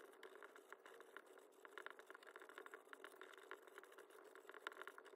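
Faint scratching of a pencil writing in cursive on a paper card, in quick, irregular little strokes.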